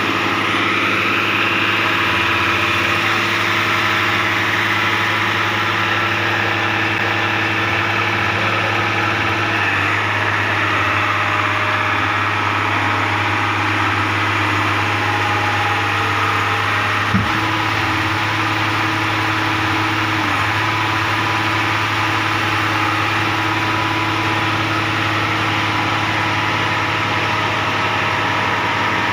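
Engine of a PQRS track-relaying machine running steadily at idle, with a single sharp knock a little past halfway.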